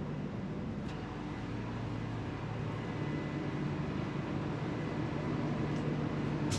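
Steady low hum of a standing train's onboard machinery, with a few faint steady tones, heard inside an air-conditioned chair car coach.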